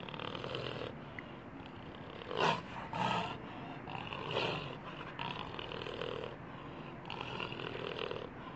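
Jaguar recording: a series of rough, grunting calls, loudest about two and a half and three seconds in.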